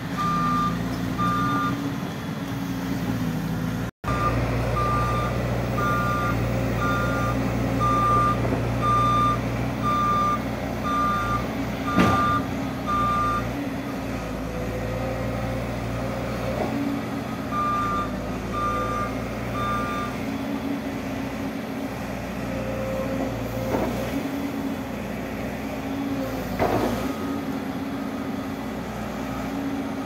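Volvo EC210 crawler excavator's diesel engine running steadily while its warning alarm beeps in short regular pulses, in a long run and then a shorter one later. A sharp knock is heard about halfway through.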